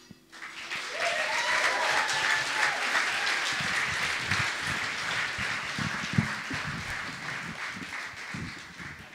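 Audience applauding at the end of a song, the clapping dying away near the end.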